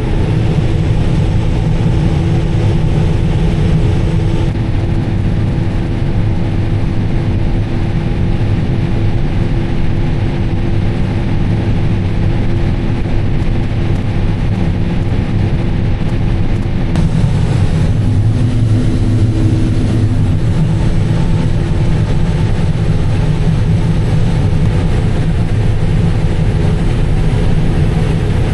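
2019 John Deere S780 combine running steadily while harvesting, its engine and machinery making a continuous drone. The low hum shifts slightly about two-thirds of the way through.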